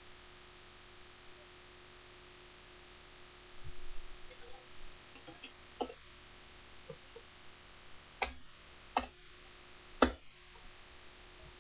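Several computer mouse clicks, scattered through the second half, over a steady low electrical hum.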